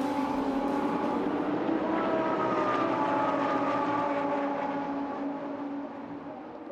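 Lamborghini Gallardo Super Trofeo race cars' V10 engines running as the cars drive away, a steady engine note that fades over the last second or two.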